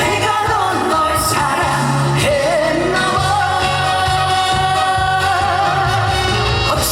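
A singer performing a song live over loud musical accompaniment with a steady beat and bass, holding one long note with vibrato from about three seconds in.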